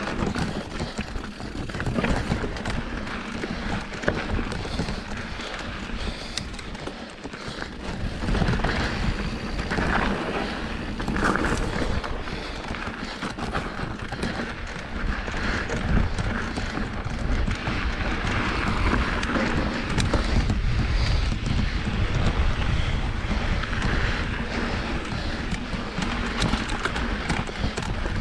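Mountain bike rolling over rocky dirt singletrack: tyres crunching and the bike rattling and knocking over rocks, with wind rumbling on the action-camera microphone, heavier in the second half.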